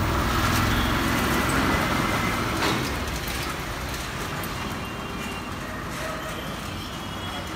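Street traffic noise, with a passing motor vehicle's engine rumble loudest in the first few seconds and then fading. A single sharp knock sounds about two and a half seconds in.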